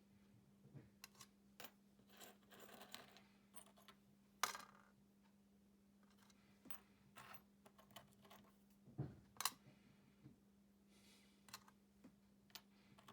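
Faint scattered clicks and light clinks of small metal spoon lures being handled, with brief rustles, over a steady low hum. The sharpest clicks come about four and a half and nine and a half seconds in.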